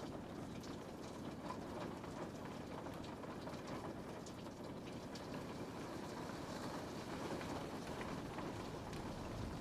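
Steady rain falling on a window pane: a constant wash of rain with scattered light drop ticks.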